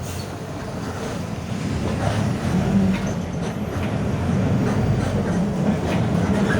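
Mercedes-Benz OF 1721 bus running under way, its OM924LA four-cylinder diesel and driveline making a low drone that grows louder and rises slightly in pitch as the bus picks up speed. The rear differential growls, and there are a few short knocks.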